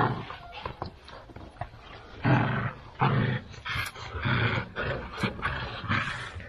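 Two-month-old Central Asian Shepherd puppies growling in tug-of-war play, a string of short growls, most of them in the second half.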